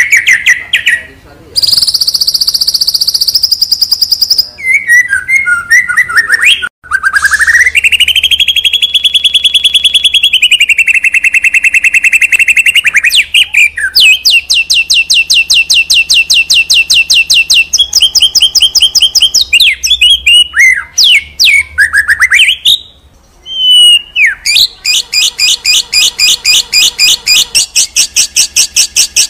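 Bornean white-rumped shama singing loudly and almost without a break: long rapid trills and rattling runs of repeated notes, mixed with whistled slides up and down, with short pauses between phrases.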